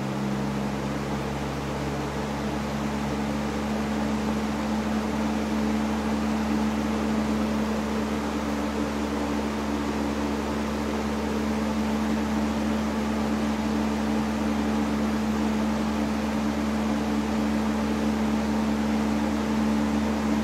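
1987 Robeson 20-inch reversible box fan running: a steady rush of moving air over a motor hum, the hum rising a little in pitch in the first second as the fan speeds up, then holding steady.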